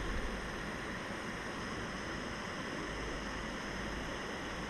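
Jetboil Flash gas stove's burner hissing steadily at full flame, with the water in its pot close to the boil.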